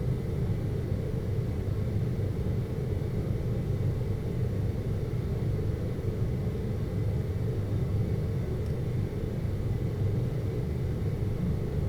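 Continuous deep ambient hum of brown-style noise, an even low rumble with little treble that holds at one level throughout.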